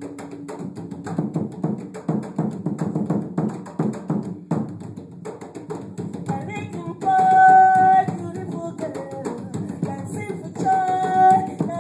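Several djembes played by hand in a fast, steady rhythm. A woman's voice holds a long sung note about seven seconds in and again near the end, the loudest moments.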